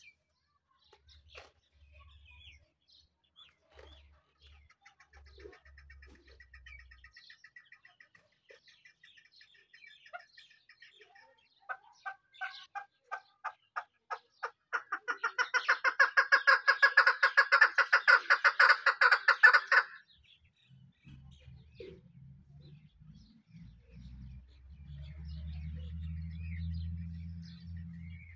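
Male grey francolin (teetar) calling. Spaced sharp notes quicken about twelve seconds in into a loud, fast run of repeated calls lasting about five seconds, then stop abruptly.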